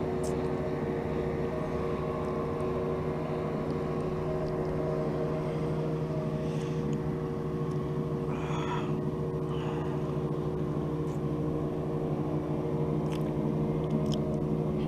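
Boat engine running steadily, a constant hum that holds the same pitch and level throughout.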